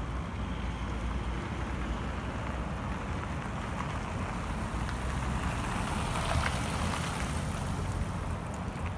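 Steady low rumble and hiss of wind and vehicle noise, swelling slightly about six seconds in.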